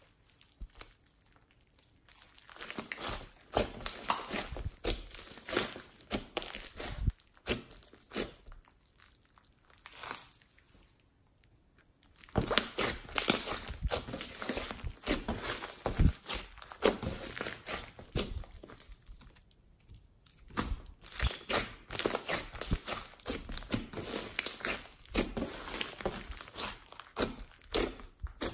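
Hands squishing and kneading thick slime full of small foam beads, making a dense sticky crackling that comes in bouts with short pauses between.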